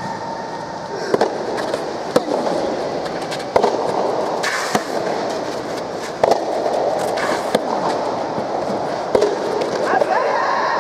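Soft tennis rally: rackets striking the soft rubber ball with sharp pops, about six strikes a second or more apart and irregularly spaced, over steady background noise.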